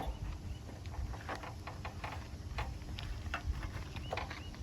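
Irregular light clicks and knocks of a motorcycle's exhaust silencer being handled and worked loose by hand, engine off.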